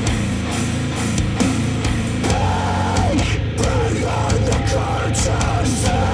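Heavy rock music with guitar and drum kit, played back through Polk Audio R100 bookshelf speakers driven by a NAD C 338 integrated amplifier.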